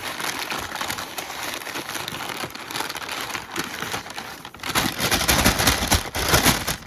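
Packaging crinkling and rustling as a small package is opened by hand. It gets louder and denser for about two seconds near the end.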